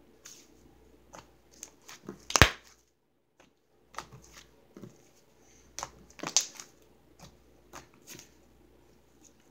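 Butter slime being kneaded and squished by hand, giving irregular wet clicks and pops, the loudest about two and a half seconds in and again around six seconds in.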